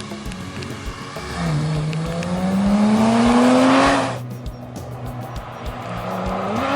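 Porsche 991 GT3's naturally aspirated flat-six under hard acceleration, its pitch climbing steadily through a gear before the throttle shuts abruptly about four seconds in. The engine then runs low for a couple of seconds and starts revving up again near the end.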